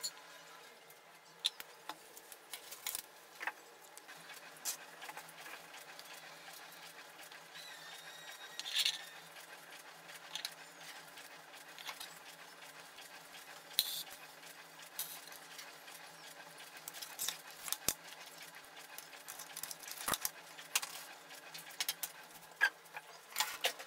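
Small hardware handled on a wooden tabletop: scattered light clicks and taps of metal screws, binding posts and tools being picked up and set down.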